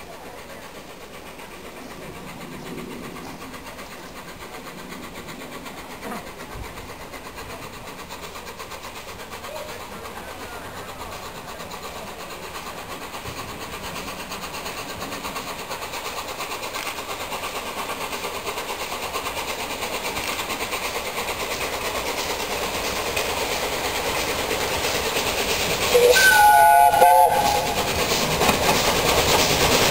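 LNER Peppercorn A1 Pacific steam locomotive 60163 Tornado approaching with its train, its rumble and rail noise growing steadily louder. Near the end it sounds one whistle blast of about a second and a half.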